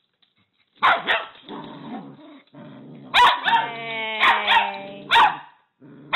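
Two small dogs, a Cavalier King Charles Spaniel and a black-and-white dog, barking and growling at each other. Two sharp barks come about a second in, then from about three seconds in a run of higher, yapping barks with growling between them.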